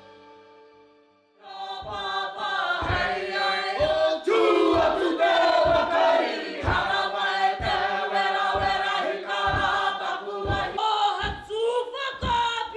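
Background music fading out, then a Māori haka: a group of performers chanting and shouting in unison, with heavy thumps about once a second.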